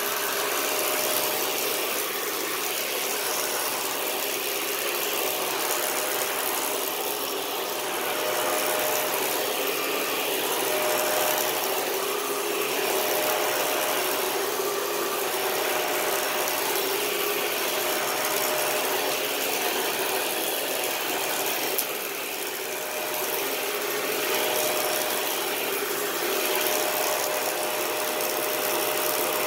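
Dyson DC41 Animal upright vacuum cleaner running steadily, its brush roll making an unusual noise over the motor, which the owner takes as a sign the brush roll needs cleaning out again.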